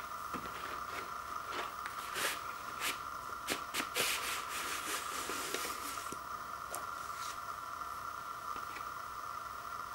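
Paper and cardboard rustling and sliding as a paper inner sleeve holding a vinyl LP is drawn out of its record jacket and laid down, with a few light taps. The rustling is busiest in the middle, over a steady faint high-pitched tone.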